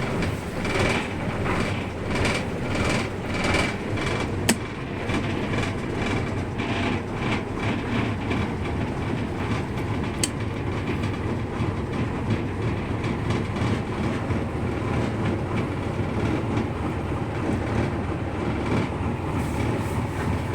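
Broom Ocean 42 motor cruiser's inboard engines running steadily, sounding healthy. A pulsing beat of roughly one to two a second shows in the first eight seconds or so, and two sharp clicks stand out, one about four seconds in and one about ten seconds in.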